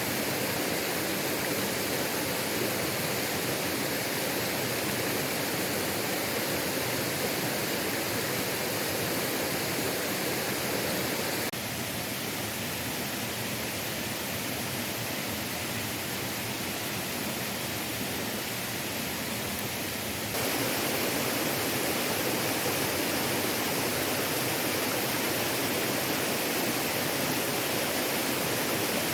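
Waterfall rushing steadily. It drops a little quieter and duller for several seconds in the middle, then comes back at full strength.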